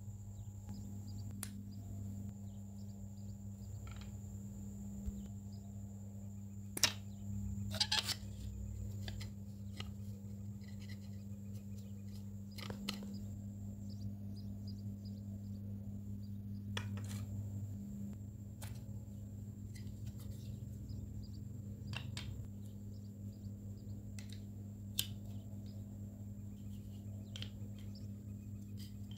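Scattered sharp clicks and light taps of small hard parts being handled, the loudest around seven to eight seconds in, over a steady low hum and a faint high whine.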